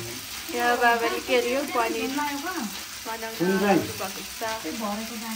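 Voices talking over a steady sizzle of food frying in a pan.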